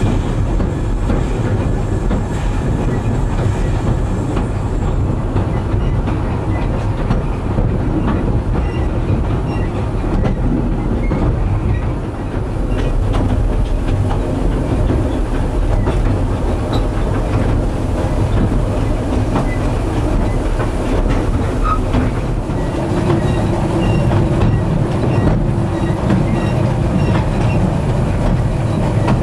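Narrow-gauge railway carriage running along the track, heard from inside the carriage: a loud, steady rumble of wheels on rail with occasional faint clicks.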